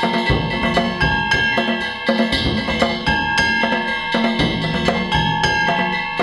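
Danjiri festival hayashi: taiko drums and hand-struck kane gongs played in a fast, steady, continuous rhythm, with held ringing tones above the drumming.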